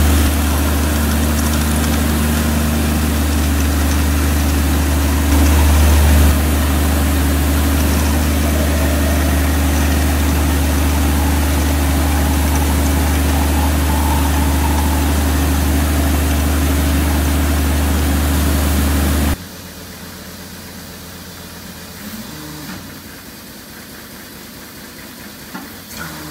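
Clark MH0003 in-seam hydraulic long hole drill rig running while it rotates and feeds a drill rod into a block: a steady low mechanical hum with brief louder surges at the start and around six seconds in. About two-thirds of the way through the sound drops sharply to a much quieter level.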